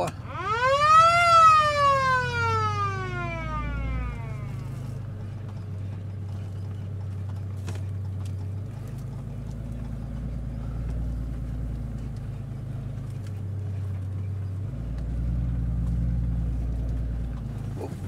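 A siren winds up to a high pitch in about a second and then coasts slowly down over the next few seconds, sounded to call the buffalo. Afterwards the truck's engine runs steadily at low speed through the pasture, with one click about eight seconds in.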